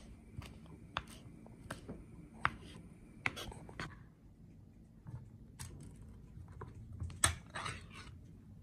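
Kitchen knife chopping fresh herbs on a wooden cutting board, a knock about every 0.7 s. After a short pause, a ring-pull tuna can is opened: clicks as the tab is lifted, then a sharp snap about seven seconds in as the seal breaks, and a brief scrape as the metal lid peels back.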